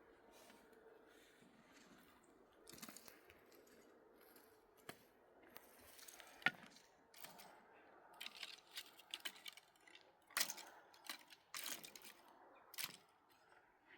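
Faint scattered clicks, knocks and rustling of handwork, with one sharp click about six and a half seconds in and a busier run of brief knocks and scrapes from about eight seconds on.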